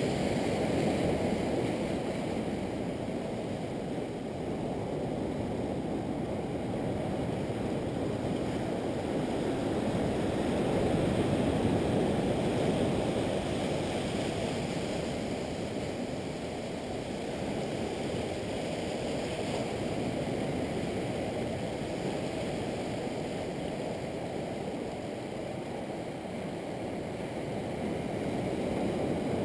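Ocean surf washing against a rocky shore: a steady rushing that swells and eases every several seconds.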